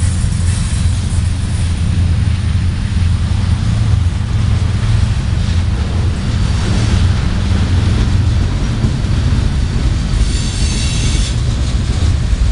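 Freight cars of a CN freight train rolling past on steel wheels: a steady, heavy rumble of wheels on rail, with a brief high wheel squeal about ten seconds in.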